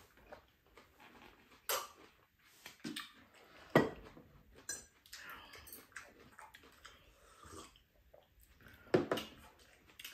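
Tableware at a meal: scattered clinks and knocks of metal chopsticks, ceramic mugs and plates, with sharper knocks about two, four and nine seconds in.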